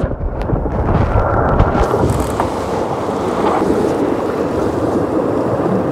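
Strong wind buffeting the microphone and water rushing past the hull of a J70 sailboat sailing fast, a steady low rush.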